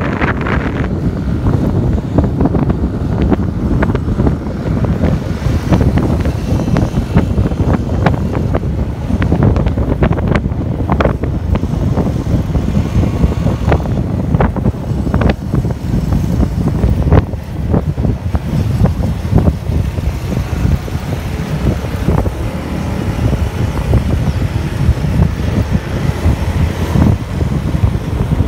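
Riding on a small motorcycle: heavy wind buffeting on the microphone over the running engine and road noise, with frequent irregular pops from the wind.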